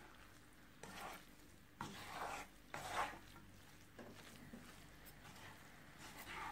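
Spatula stirring pasta in a frying pan: a few short, soft scraping strokes, the loudest about three seconds in, over a faint steady hum.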